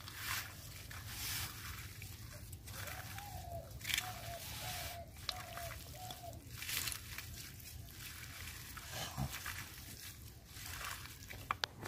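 Hands squeezing and kneading raw chicken pieces with chopped onion, spices and oil in a bowl, making faint wet squishing and rustling. A few seconds in, an animal calls five times in a row, each call short and alike.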